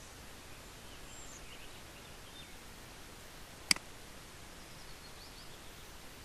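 A single sharp computer mouse click a little past halfway, over a steady faint background hiss.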